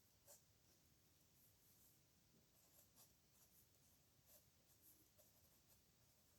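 Pen nib scratching faintly on paper in short, irregular strokes, with a few sharper ticks as the nib meets the page.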